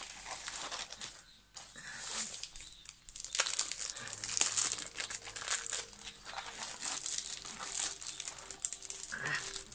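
Clear plastic wrapping crinkling and rustling as a rolled diamond painting canvas is handled and unwrapped, in uneven short bouts that grow busier from about three seconds in.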